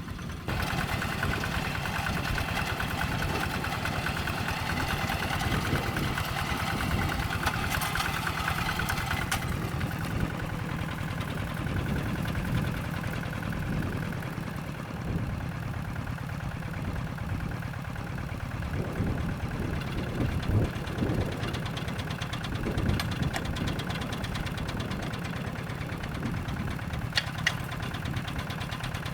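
Single-cylinder diesel engine of a Kubota hand tractor with a Quick engine, running steadily under load while ploughing a rice paddy. A higher hissing noise rides along with it for the first nine seconds or so, and a few sharp ticks come near the end.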